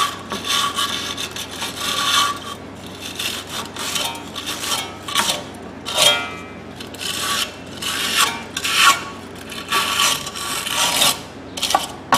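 Hand wire brush scrubbing rust off the steel shoe mounting pads of a Hyundai Sonata's rear brake backing plate, in a run of irregular strokes.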